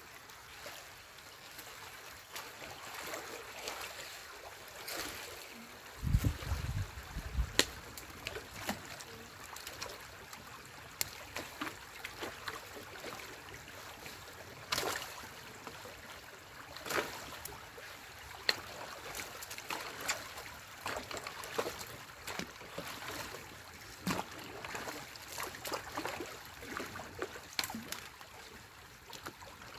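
Stream water running and trickling through a beaver dam, with scattered sharp splashes and knocks as sticks and mud are raked out of the dam. A low rumble comes about six seconds in.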